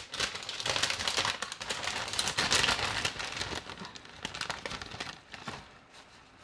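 Fresh spinach leaves rustling and crinkling as handfuls are put into the pan, dense and crackly for the first three seconds or so, then fading away.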